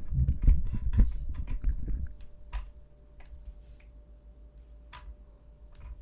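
Low thumps and rustling from handling and moving about for about two seconds, then a few scattered light clicks and taps over a faint steady hum.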